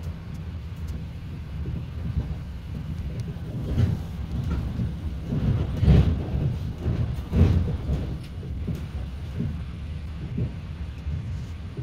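Train passing close by: a steady low rumble with a few heavy knocks of the wheels near the middle.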